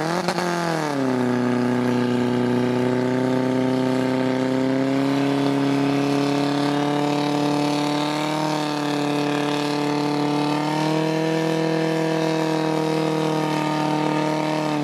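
Portable fire pump's engine running at full throttle under load, driving water through the attack hoses. Its pitch drops sharply in the first second and then holds a steady high note with small wavers.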